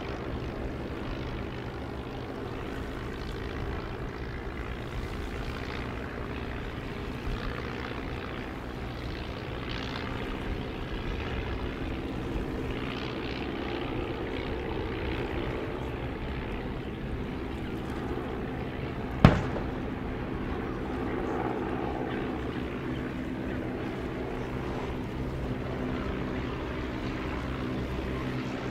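Steady drone of Tiger Moth biplanes' propeller engines overhead. About two-thirds of the way through comes a single sharp boom, the loudest sound, from a WWII coastal gun fired in salute.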